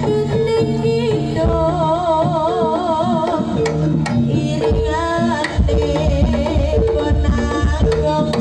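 Live Jaranan ensemble music: hand drums playing dense strokes under steady pitched notes from tuned percussion. A high melody line with a wide, wavering vibrato runs over it in the first half.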